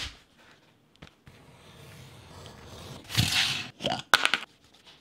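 Leather pieces handled on a cutting mat. A sharp tap comes right at the start, a rustling scrape about three seconds in, then a click and a couple of quick scuffs.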